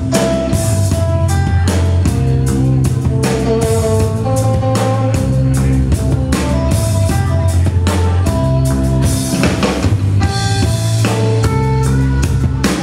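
Live rock band playing: electric guitar notes over a drum kit.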